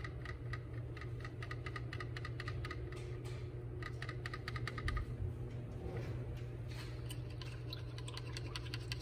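Small paintbrush dabbing paint onto a stretched canvas: runs of quick, light taps with short pauses between them.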